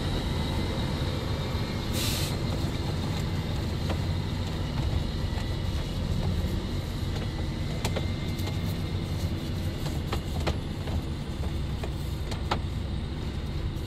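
A truck's engine running steadily with a low rumble, heard with scattered light clicks and a brief hiss about two seconds in.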